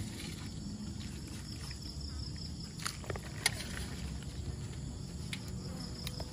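Steady background chorus of insects over a low rumble, with a couple of faint clicks around the middle.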